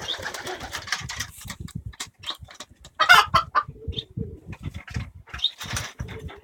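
A pet bird's noisy, repeated harsh calls, the loudest burst about three seconds in.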